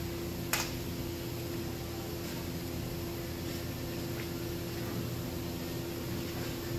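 Steady machine hum with a constant low tone, and a single sharp click about half a second in, with a few faint ticks of belts and parts being handled.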